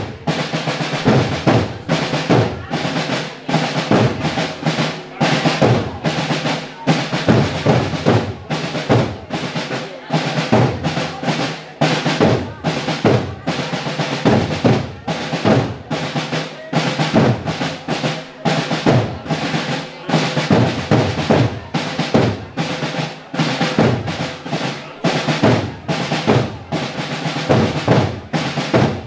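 Drum corps of a medieval historical group, snare and bass drums, playing a continuous marching cadence with rolls, several strokes to the second.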